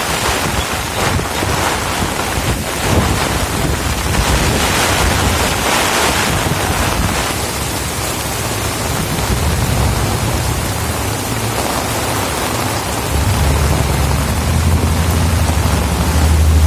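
Heavy rain pouring down with strong gusting wind. From about three-quarters of the way in, a low engine hum joins it and rises in pitch towards the end, as a vehicle approaches.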